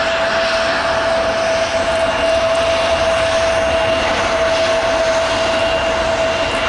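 Airbus A330-200 jet engines on landing: a loud, steady rush of noise with a constant whine held on one pitch.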